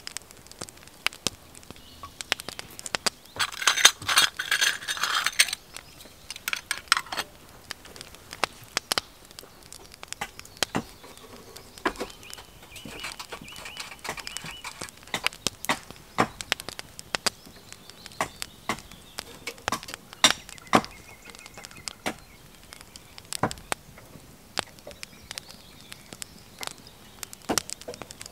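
Scattered sharp clicks and light metallic clinks, irregular throughout, with a louder rasping burst lasting about two seconds, starting some three seconds in.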